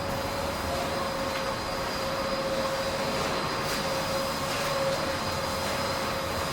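Steady machinery noise with a constant hum and a faint high whine running underneath.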